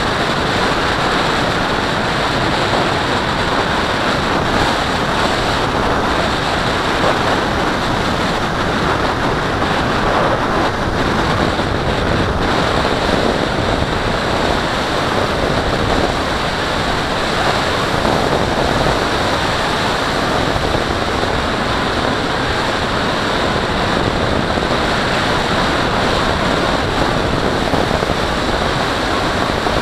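Steady rush of airflow over a Mobius action camera mounted on the wing of a gliding RC sailplane: wind noise on the microphone.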